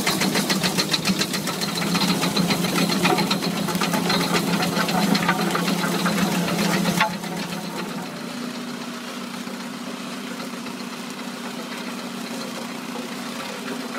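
Gillnet boat's engine running, with a dense rapid clattering of net and fish coming aboard over it for about seven seconds. Then a sudden change to a quieter, steady engine hum without the clatter.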